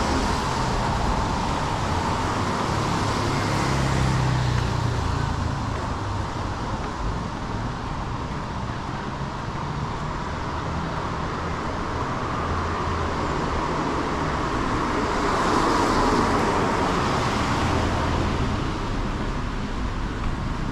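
Street traffic: a steady road noise with passing cars, swelling about four seconds in and again around sixteen seconds.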